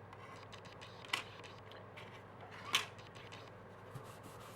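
Two light clicks about a second and a half apart, with a few fainter ticks, from a plastic model kit being picked up and handled on the workbench.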